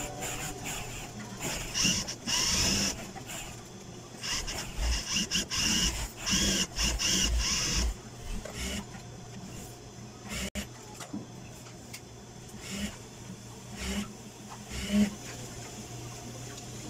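Industrial sewing machine stitching binding tape along the edge of a mattress cover in several short runs, over a steady motor hum. The stitching stops a little past halfway, leaving the hum and a few light handling sounds.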